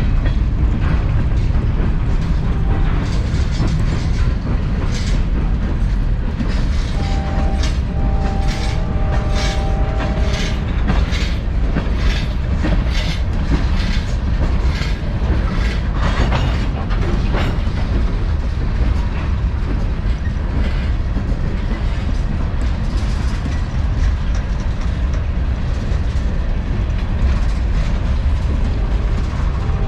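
Freight cars of a long Norfolk Southern manifest train rolling past in a steady rumble, the wheels clacking over rail joints. A steady ringing tone sounds for a few seconds about seven seconds in.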